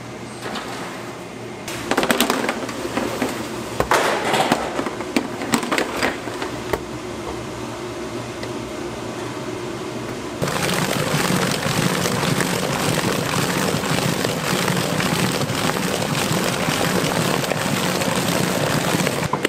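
Cake factory work noise: irregular clattering and knocking for a few seconds, then steady machine noise with a low hum that starts abruptly about ten seconds in and runs on.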